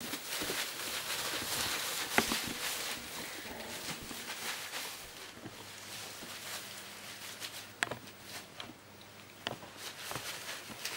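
Shredded newspaper bedding rustling and crackling as puppies tumble and play through it, louder in the first half, with a few sharp knocks, the loudest about two seconds in and another near eight seconds.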